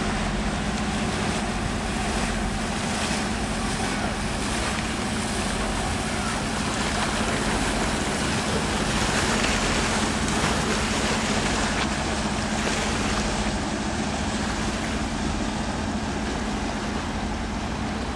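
Steady low engine drone from vessels passing on the canal, with wind rushing over the microphone; the noise swells slightly around the middle and then eases.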